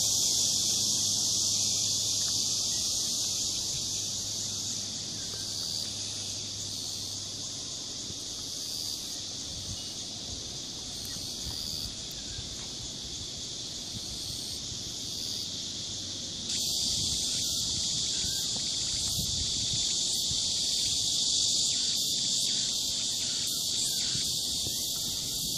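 Steady, high-pitched chorus of insects in summer vegetation, which gets louder about two-thirds of the way through.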